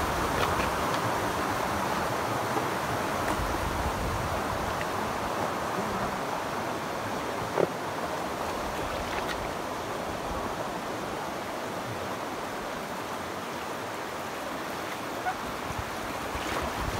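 Shallow river water rushing and gurgling over rocky riffles, heard close to the surface from a drifting raft. One short knock about halfway through.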